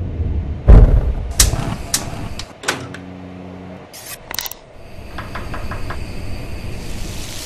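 A string of kitchen sound effects: a heavy thud about a second in and several sharp knocks, a brief low hum, then quick high metallic scrapes of a chef's knife drawn along a honing steel. Near the end comes a fast run of small clicks, and a steady hiss builds underneath.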